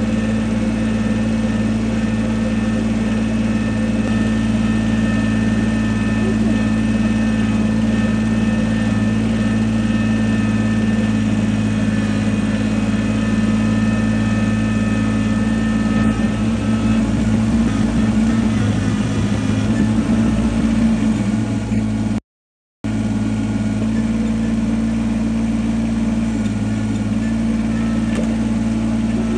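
A vehicle engine running at a steady speed, its drone unchanging. The sound cuts out completely for about half a second a little past two-thirds of the way through.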